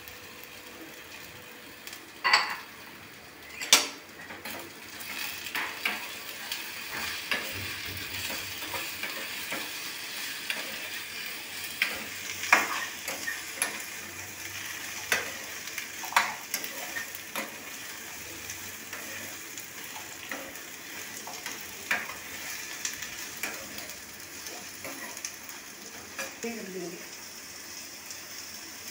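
Chopped beetroot and tomato frying in ghee in a saucepan, with a steady sizzle. A spoon stirs them and clinks against the pan now and then, loudest twice in the first four seconds.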